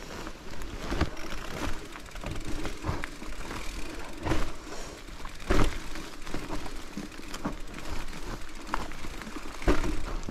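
Mountain bike ridden over a rough trail: a steady rattle and rumble from tyres, chain and frame, broken by irregular loud knocks as the bike hits bumps, the hardest about five and a half seconds in.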